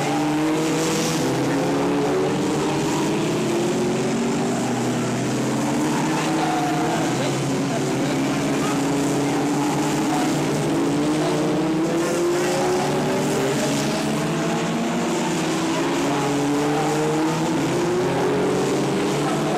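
F2 stock car engine at racing speed on a short oval, the revs climbing along each straight and dropping back into the bends, about four times.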